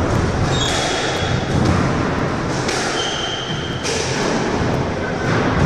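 Squash court ambience between rallies: a steady hiss of room noise with a few dull thuds, and two short high tones, about half a second and three seconds in.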